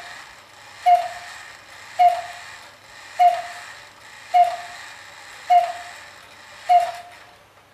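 Antique owl-shaped wall clock striking the hour: a single clear bell-like note sounds six times, a little over a second apart, each ringing out and fading before the next.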